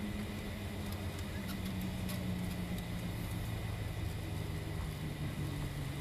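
Airliner cabin noise: a steady jet-engine hum whose low tones slowly fall in pitch, with a few faint clicks about two seconds in.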